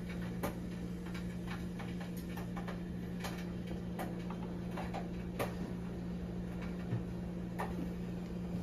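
Light, irregular clicks and taps of a metal spoon against a metal pizza pan as olive oil is spread over the cheese, heard over a steady low hum.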